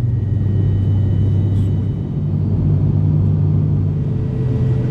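Turboprop airliner's engines and propellers running, heard from inside the cabin beside the propeller: a steady low hum with a faint high whine above it.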